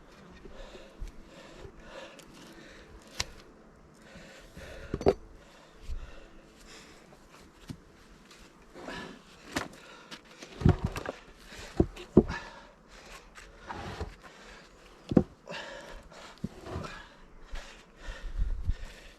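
Irregular wooden knocks and thuds of split rounds and tools being handled, with footsteps; the sharpest knocks come in a cluster about ten to twelve seconds in and once more about fifteen seconds in.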